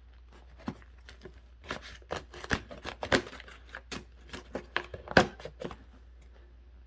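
Cardboard shipping box being handled and worked open: a run of irregular sharp clicks and scrapes, the loudest about five seconds in.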